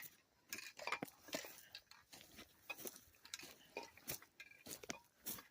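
Footsteps crunching on a wooded trail's forest floor, a few irregular steps a second.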